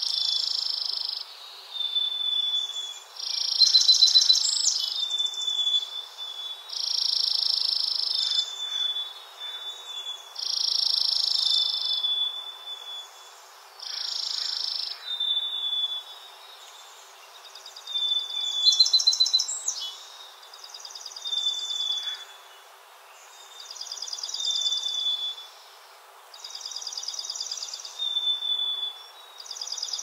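A songbird singing a short, trilling song phrase over and over, one about every three to four seconds, with short thin whistle notes between the phrases.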